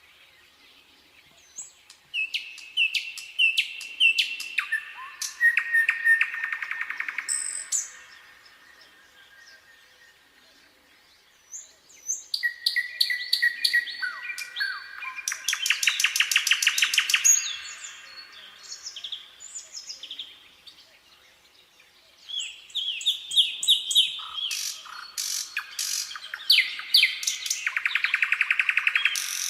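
Nightingale singing: three song phrases of whistled notes and fast rattling trills, with pauses of a few seconds between them.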